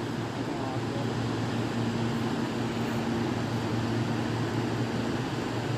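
Steady low hum of a running vehicle, with a faint steady tone over it for a second or two.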